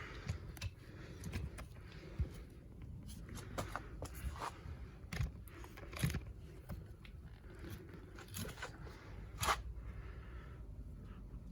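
Scattered handling noise: light scrapes, rustles and clicks, with a couple of sharper knocks about six and nine and a half seconds in.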